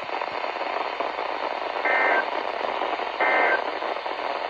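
Weather radio receiver hissing with static from poor reception, broken by two short warbling data bursts about a second and a half apart, with a third starting right at the end: the SAME end-of-message code that closes an emergency alert broadcast.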